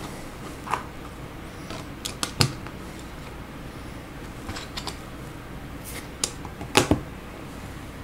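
Plastic Lego bricks clicking as they are pressed onto a model car: scattered sharp clicks, the loudest pair near the end.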